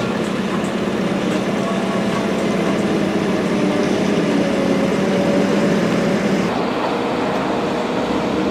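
Heavy farm diesel engines of tractors and wheel loaders running steadily under load while moving and tipping chopped maize. The higher hiss drops away about two-thirds of the way through.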